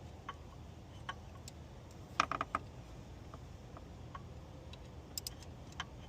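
Light clicks and taps of hand tools and parts being worked on an engine's coolant hose, scattered, with a quick cluster of several clicks about two seconds in and a few more near the end.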